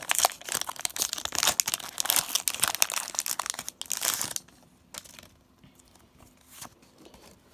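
Foil wrapper of a Pokémon booster pack being torn open and crinkled, a dense crackling that stops about four and a half seconds in, followed by a few faint ticks.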